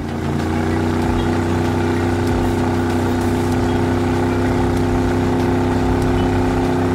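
Engine sound effect for a cartoon truck towing a sunken bus through water: a steady, loud engine drone under load.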